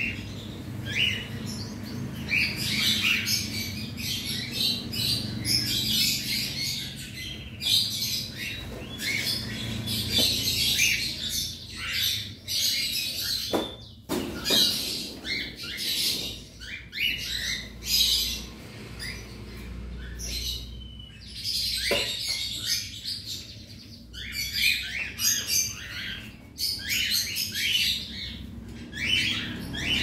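A colony flock of about a hundred cockatiels chirping and squawking, many short calls overlapping without pause.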